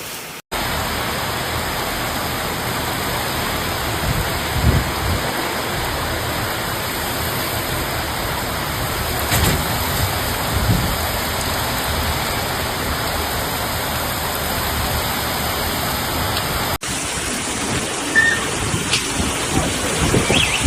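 Heavy rain pouring down as a steady dense hiss, with a few low rumbles. Just before the end it cuts to another downpour with scattered sharper drop hits.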